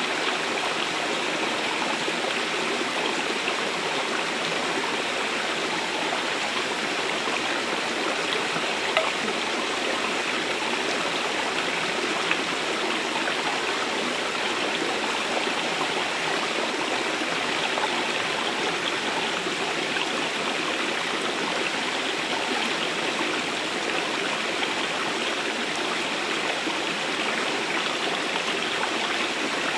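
Shallow, rocky stream running steadily over and between stones: an even rush of water that never lets up.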